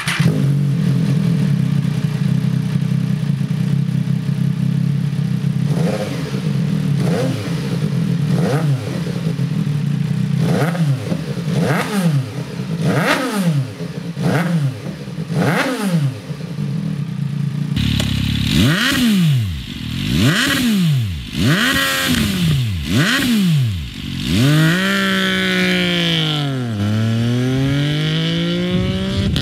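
MV Agusta F3 675's inline three-cylinder engine idling, then blipped in a series of quick throttle stabs, the revs shooting up and dropping straight back. After a cut about eighteen seconds in, more sharp revs follow, then a longer fall and climb in engine pitch near the end.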